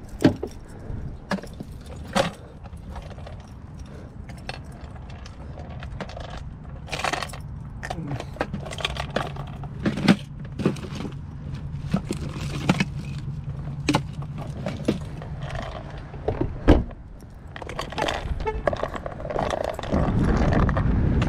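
Keys jangling and a string of short clicks and knocks from handling things at a car, with a low steady hum through the middle. Near the end a louder steady noise sets in.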